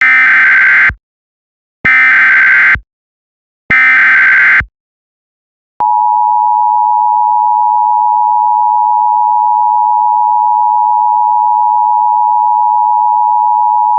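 Emergency Alert System SAME header: three loud one-second bursts of digital data tones, about a second apart. About six seconds in, the steady two-note EAS attention signal starts just under 1 kHz, the tone that announces an emergency message is about to follow.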